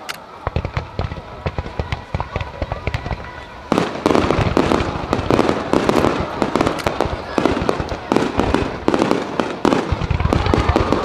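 Starmine fireworks barrage: a run of rapid launches and bursting shells that thickens about four seconds in into a dense, continuous volley of overlapping bangs and crackle.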